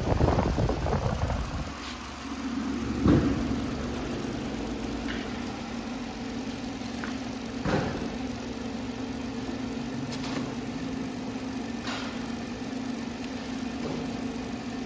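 Steady electric machine hum in a transformer workshop, with a loud low rumble in the first second or so. A few sharp knocks come a few seconds apart.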